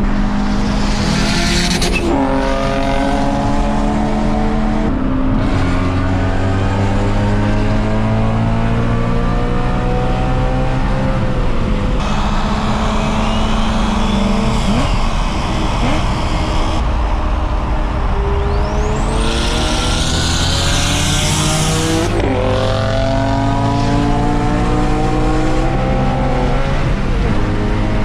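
Turbocharged Infiniti G35 coupe's 3.5-litre V6 pulling hard, its note climbing steadily through long gear pulls. Two bursts of high hiss, near the start and about two-thirds through, the second with a rising turbo whistle.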